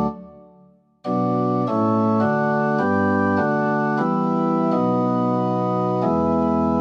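Organ playing slow, sustained chords. A held chord dies away at the start, and after about a second of near silence a new phrase begins, the chords changing every half second to a second.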